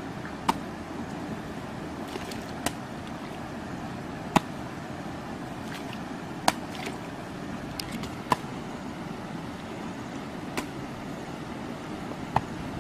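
Hoe chopping into a mound of wet earth. There are about seven sharp knocks, roughly one every two seconds, over a steady background hiss.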